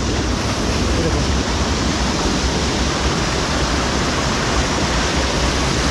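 Steady, loud rush of flowing water from the stream that feeds the fish pond.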